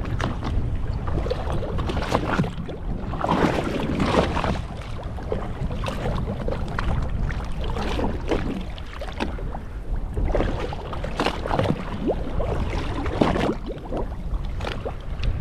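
Sea water slapping and splashing against the side of a fishing boat's hull, in irregular strokes over a steady low rumble.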